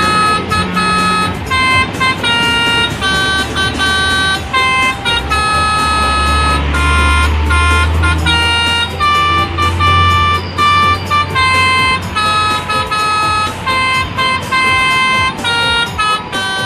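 Telolet multi-tone air horn playing a quick melody of stepped, held notes, one after another. A deep rumble swells under it in the middle.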